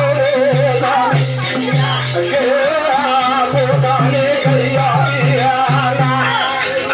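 A devotional bhajan: a singer's wavering, ornamented melody over a steady drum beat at about three beats a second, with a rattling percussion accompaniment.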